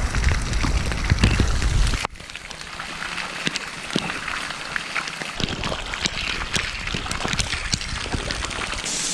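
Rain falling steadily, with many single drops striking close by as sharp little ticks. A low rumble sits under it for the first two seconds, cuts off suddenly, and comes back from about five seconds in.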